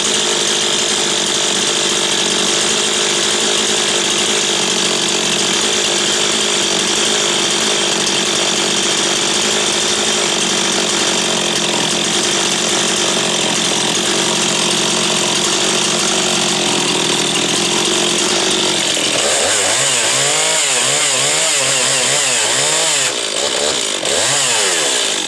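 Stihl 026 two-stroke chainsaw running at high, steady throttle, then revved up and down repeatedly over the last few seconds.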